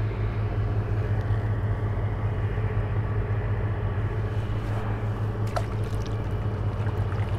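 A steady low engine drone, with a couple of faint clicks about two-thirds of the way through.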